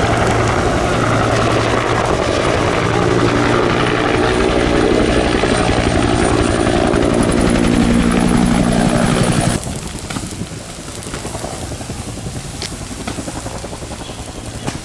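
Firefighting helicopter flying low overhead, its rotor and turbine running loud and steady with a faint high whine. About two-thirds of the way through, the sound cuts off abruptly, leaving a much quieter stretch with a few faint clicks.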